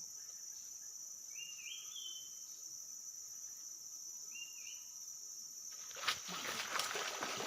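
Steady high-pitched drone of forest insects, with a short stepped rising chirp twice. About six seconds in, a sharp knock comes and is followed by loud noisy rustling or splashing that runs on.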